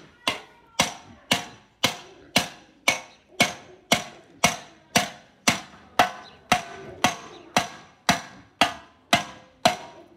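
Hand hammer striking a copper kettle body, about two even blows a second. Each blow is a sharp metallic clang with a short ring from the copper. The smith is shaping the vessel by hand hammering.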